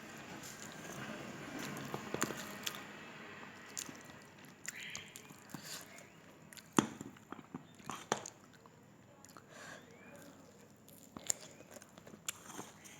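Close-up eating sounds of a person chewing khichuri with soft-cooked beef curry: irregular wet mouth clicks and lip smacks, with one sharper click about seven seconds in.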